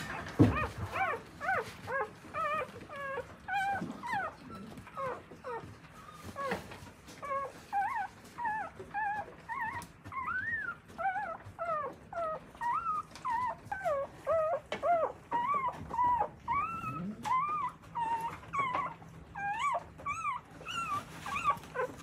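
Newborn Akita puppies squeaking and whimpering, many short high cries one after another, with a thump about half a second in.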